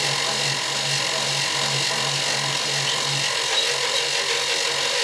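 Harbor Freight mini milling machine running, its end mill cutting a slot in an aluminum bar as the table is fed. A steady motor and cutting noise, with a low pulsing throb that stops about three seconds in.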